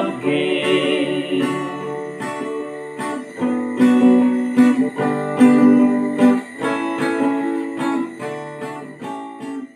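Instrumental end of a song after the last sung line: plucked and strummed guitar chords over a steady beat, dying away near the end.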